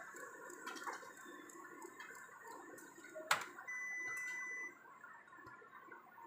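Konica Minolta Bizhub C250i colour laser multifunction printer running a print job, a steady mechanical whir with regular ticking as sheets feed through. A sharp click about three seconds in, then a steady high tone for about a second.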